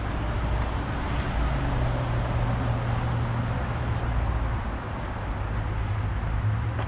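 Steady, unbroken noise of road traffic on the Highway 23 freeway, with a constant low hum underneath.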